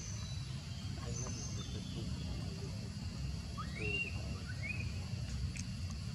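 Steady low outdoor rumble, with a few brief high chirps that rise and fall in pitch, two of them close together about four seconds in.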